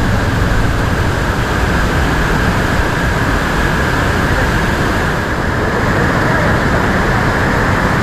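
Loud, steady rush of a fast-flowing waterfall in spate, water pouring and crashing without a break.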